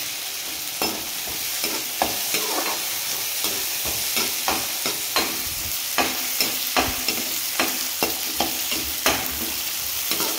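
Onions and garlic sizzling in oil in a metal kadhai over high heat, with a steady hiss. A metal spoon stirring them scrapes and clicks against the pan, about every half second.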